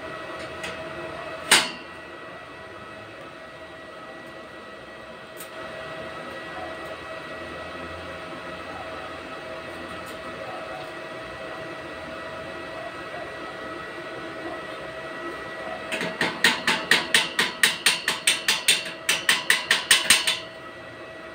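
Hand tools on a galvanized steel tube frame: a single sharp metal knock, then near the end a run of quick light taps, about six a second, over a steady background hum.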